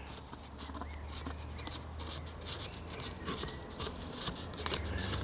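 Light rubbing and scratching as a thin balsa sheet is handled and worked by hand, many small irregular strokes over a steady low hum.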